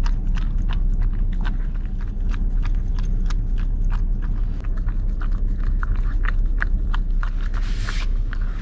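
A Pomsky puppy lapping whipped cream from a small paper cup: quick wet licking clicks, several a second, over a steady low rumble.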